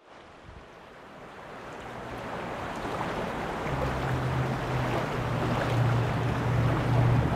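Fast-flowing muddy floodwater rushing and churning: a steady rush that grows louder over the first few seconds, with a low rumble joining about four seconds in.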